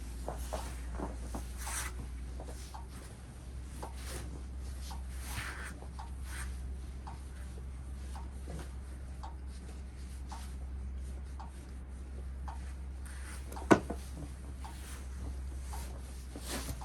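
Scattered light scraping and rubbing sounds over a steady low hum, with one sharp click about two-thirds of the way through.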